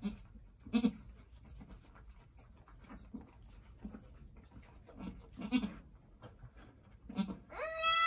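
Angora goat vocalising: a few short low grunts, then near the end a loud, high-pitched bleat lasting nearly a second.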